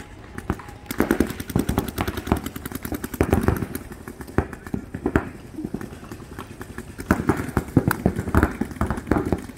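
Paintball markers firing in rapid strings of many shots a second, starting about a second in.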